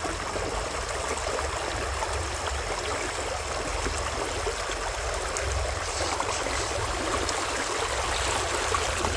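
A small spring creek running steadily over its bed: a constant rush of flowing water.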